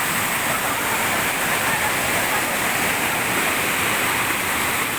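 Steady rush of water, an even unbroken hiss with no separate splashes or changes.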